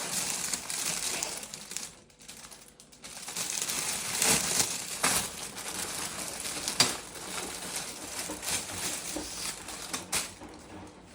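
Crinkling and rustling of handled packaging or papers, with scattered clicks and knocks and a short lull about two seconds in.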